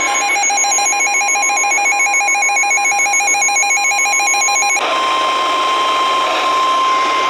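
Emergency alert tones from a broadcast severe thunderstorm warning: a rapidly warbling, beeping electronic tone pattern for about five seconds, which then gives way to the steady single-pitched NOAA Weather Radio warning alarm tone.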